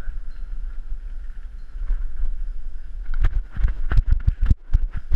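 Steady rumble of wind and tyres on a head-mounted action camera while riding a three-wheeled tandem over brick paving. From about three seconds in, a quick run of sharp knocks and rattles as the bike jolts over the rough paving.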